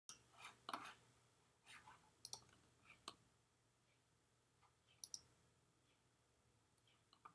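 Near silence: room tone with a few faint, scattered clicks, most of them in the first three seconds and one about five seconds in.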